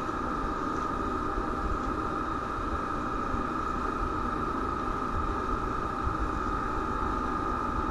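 Steady hiss and low rumble from a live nest camera's microphone, with a constant high electrical whine running through it.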